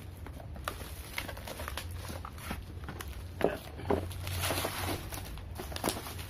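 Bubble wrap and a plastic blister-pack tool card crinkling and rustling as they are handled, with scattered clicks and two louder knocks about halfway through.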